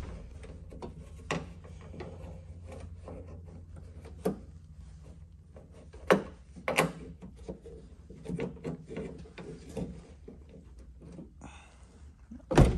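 Scattered clicks and knocks of a 2007 Chevrolet Tahoe's doors and latches being handled, with a few louder thuds, ending in a door slamming shut near the end.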